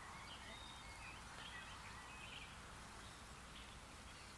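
Near silence: quiet open-air background hiss with faint, scattered bird chirps.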